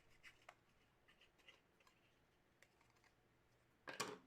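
Near silence with faint scattered clicks from handling a trading card and its packaging, then a short, louder rasp about four seconds in.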